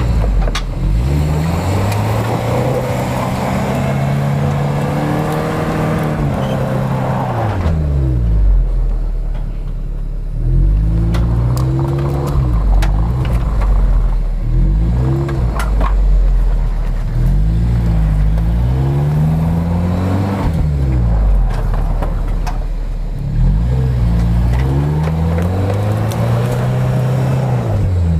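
Off-road 4x4's engine revving hard again and again under load on a steep snowy climb, its pitch rising and falling every second or two. A broad rushing noise runs under it for the first seven seconds or so.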